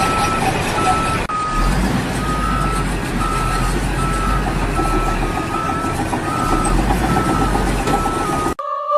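A heavy vehicle's reversing alarm beeping steadily, a little over once a second, over engine rumble and site noise. It cuts off abruptly near the end.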